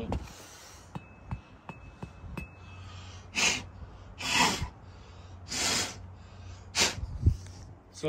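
Four short, forceful puffs of breath about a second apart: a man blowing by mouth to clear dust out of a clogged RV furnace burner. A few light clicks come before them.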